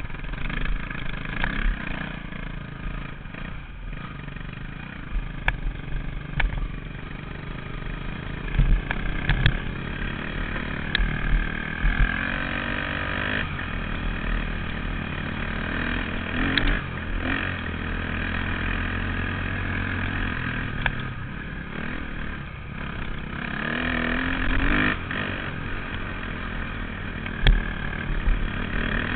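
Off-road vehicle's engine running along a rough dirt trail. Its pitch rises and falls with the throttle, climbing about twelve seconds in and again near twenty-five seconds. Occasional sharp knocks and rattles come from the rough ground.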